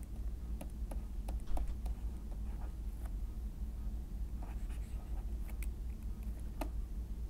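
Stylus tapping and scratching on a pen tablet while handwriting numbers: scattered light clicks over a low, steady hum.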